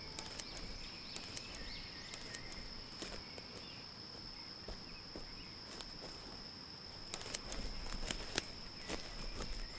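Forest ambience: a steady high-pitched insect drone, with footsteps crunching on a dirt trail that grow louder and more frequent in the last few seconds.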